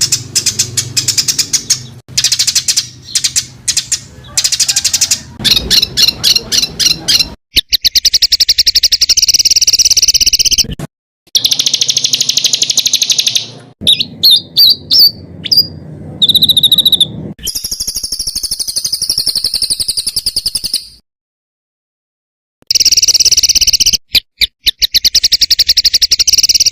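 Recorded songbird calls: dense, harsh bursts of very rapid repeated notes and buzzy trills, the 'tembakan rapat dan kasar' style used as master song for training competition songbirds. The bursts start and stop abruptly, with a silence of nearly two seconds about three-quarters of the way through.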